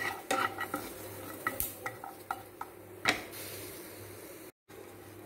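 Wooden spatula scraping and knocking on a non-stick frying pan as crushed garlic cloves are stirred and dry-roasted without oil: a run of irregular knocks and scrapes for about three seconds, then a quieter hiss as the spatula rests.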